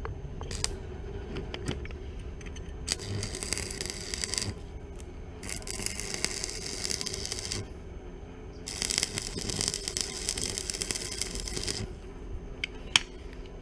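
Arc welder's arc crackling and hissing in three runs of about one and a half to three seconds each, with short pauses between, over a steady low hum; a couple of sharp clicks near the start and near the end.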